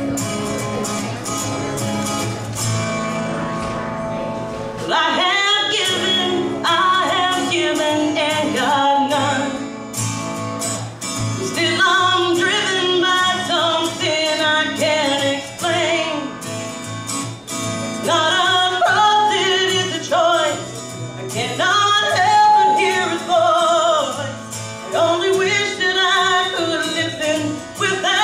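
A woman singing a song over instrumental accompaniment with guitar; the accompaniment plays alone for about five seconds before her voice comes in, then she sings in sustained phrases.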